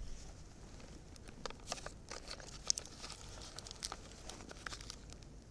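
Sticks of soft pastel clicking and rattling in a small clear plastic box as it is picked up and sorted through by hand: a run of light, irregular clicks and crinkles, after a short knock at the start.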